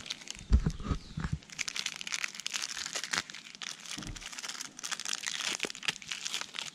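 Small foil-lined Sazon seasoning sachet being crinkled and torn open by hand, a dense run of fine crackling rustle, with a few dull knocks in the first second or so.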